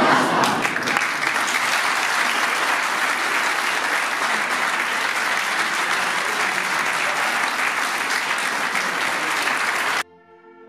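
Audience applauding: dense, even clapping that cuts off abruptly about ten seconds in, giving way to faint orchestral music.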